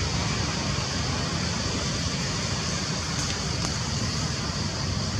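Steady outdoor background noise: a low rumble under an even, high hiss, with a few faint ticks about three seconds in.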